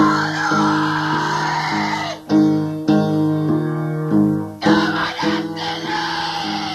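Ambient black metal played on keyboard: sustained synth chords that change about every half second to second, with a rough, noisy layer laid over them for the first two seconds and again near the end.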